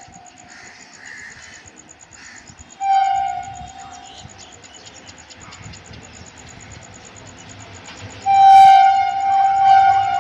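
Horn of an approaching Indian Railways WCAM2 electric locomotive. It gives a short blast about three seconds in, then a louder, long blast from about eight seconds in. A faint low rumble of the train runs underneath.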